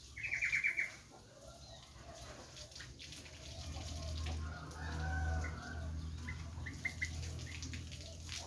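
A bird gives a quick run of about seven high chattering notes just after the start, then a rooster crows in the background around the middle, followed by a few short chirps. A low steady hum runs underneath.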